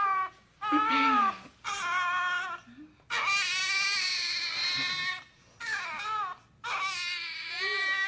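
A run of six high-pitched wailing cries with short breaks between them, each lasting half a second to two seconds; the longest and loudest comes about three seconds in.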